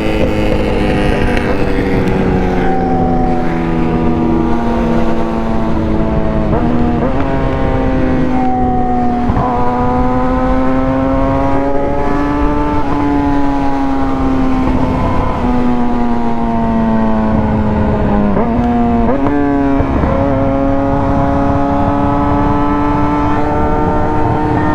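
Yamaha R6 inline-four engine running under way, its pitch rising and falling with the throttle and breaking suddenly at several gear changes, over wind rush.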